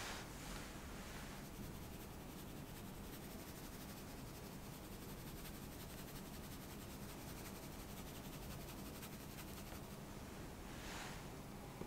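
Cocoa powder being dusted onto toast: a faint soft hiss with rapid fine ticking, and brief rustles at the start and near the end.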